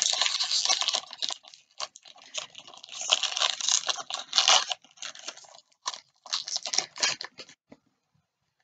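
Wrapper of a trading-card pack being torn open and crinkled, with the cards inside handled: irregular crackly rustling in spurts that stops shortly before the end.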